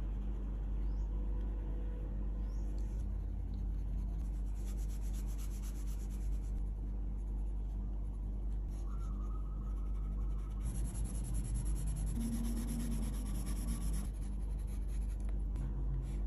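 Coloured pencils scratching across dot-grid notebook paper in quick back-and-forth shading strokes, coming in runs with short pauses between them.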